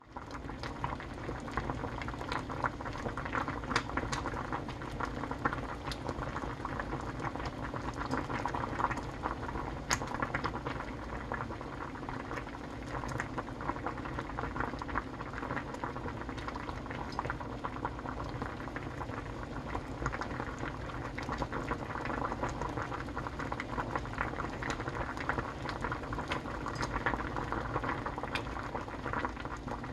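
Cheonggukjang (fermented soybean stew) bubbling steadily in a pot as it boils, with many small pops from the thick stew.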